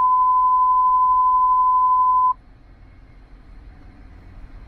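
Steady single-pitch alert tone over a police two-way radio, announcing a dispatch broadcast; it holds one high note for about two seconds, then cuts off suddenly, leaving a faint hiss from the open channel.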